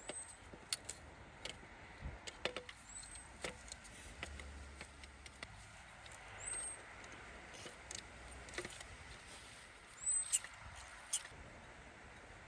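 Scattered light clicks and metal taps of hand tools and engine parts being handled during reassembly, with four short high chirps spread through.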